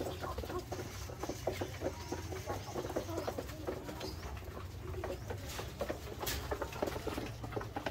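Backyard poultry flock, chickens among them, giving many short, overlapping calls, over a low steady hum.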